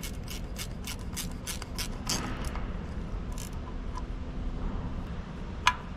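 Half-inch ratcheting wrench clicking in a quick, even run of about three clicks a second as a bolt on a Hale fire pump's VPS assembly is snugged up. Then a lone click, and a sharp metal clink near the end.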